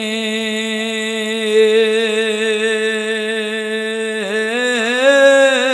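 A male preacher's voice chanting in the sung style of Bengali waz preaching. It holds one long, steady note for about four seconds, then bends up and down in ornamented turns near the end.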